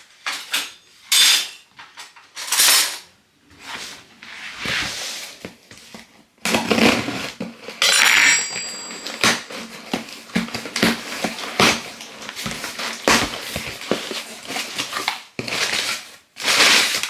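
A parcel being opened by hand: irregular rustling, tearing and crinkling of packaging, with small knocks and clinks as the items inside are handled.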